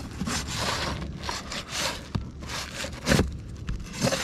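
Asphalt roof shingle being worked loose by hand after its nails are pulled: a run of scraping and tearing strokes as it drags against the shingles around it, with a sharp knock about three seconds in.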